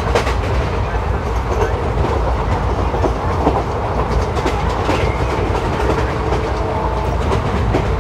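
ICF passenger coaches running at speed, heard from inside the train: a steady wheel-and-rail rumble with clicks of the wheels over rail joints. Faint steady high tones come in near the end.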